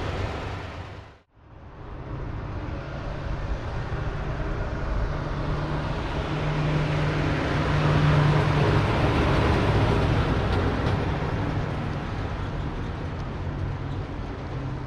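1936 Ford pickup's 221 CID flathead V8 running, with a brief drop-out about a second in. The truck then drives past, its engine loudest about halfway through and fading as it pulls away.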